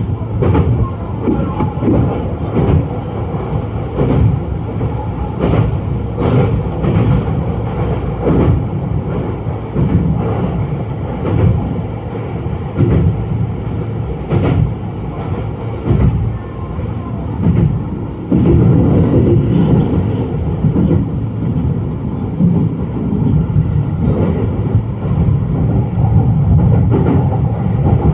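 Sotetsu 12000 series electric train running, heard from behind the cab, its wheels clacking over rail joints and points in irregular beats over a steady rumble. The running noise steps up about two-thirds of the way through and stays louder.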